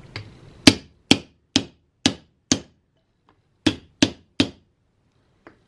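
Hammer blows knocking a bent-in piece of antique door hardware back into shape: five sharp strikes about two a second, a short pause, then three more and a light tap near the end.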